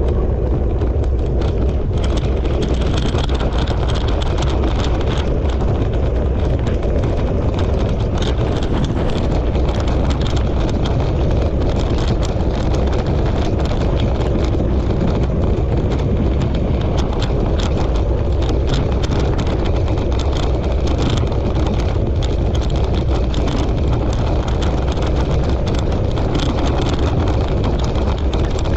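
Wheeled dryland rig pulled by a dog team, rolling steadily with a continuous rumble and light rattling, and wind buffeting the microphone.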